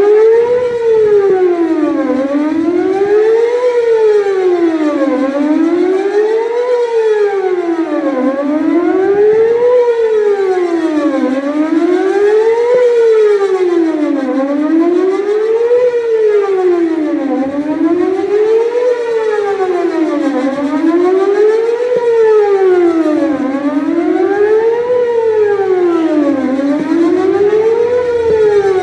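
Whelen WPS-4008 electronic warning siren sounding a test tone that sweeps up and down about every two and a quarter seconds. Its loudness stays steady rather than swelling and fading, because the rotator is broken and the speaker array does not turn.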